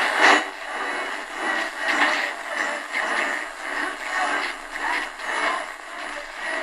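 Realistic DX-350 portable radio's speaker playing a weak, distant medium-wave AM station almost buried in hiss and static, the signal rising and falling: pulsing.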